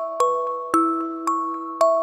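Background music: a gentle melody of struck notes, about two a second, each ringing and fading before the next.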